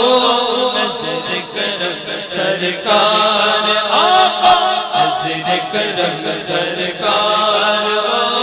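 Chanted vocal music, voices held in long, wavering notes without instruments, laid under the pictures as background music.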